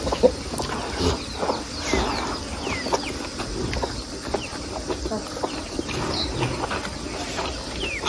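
Close-up eating sounds from a mukbang: soft knocks and clicks of chewing and handling food. Behind them, many short, quick chirps and chickens clucking.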